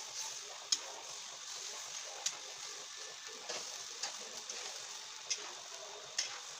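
Cabbage and cauliflower sizzling as they stir-fry in a pan, with a spatula clicking and scraping against the pan every second or so as the vegetables are turned.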